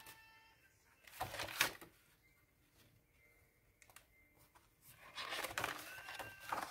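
Paper sticker-book pages being handled and turned: a loud rustle and flap about a second in, then quieter, then steadier page rustling near the end.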